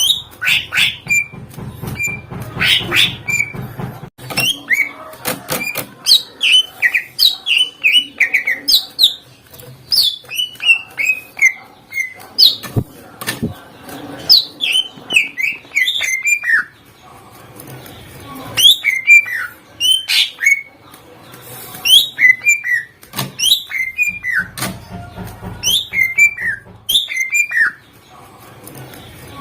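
Cucak ijo (green leafbird) singing fast and loud: phrase after phrase of sharp, downward-sliding whistles and chips, with brief pauses about two-thirds of the way through and near the end.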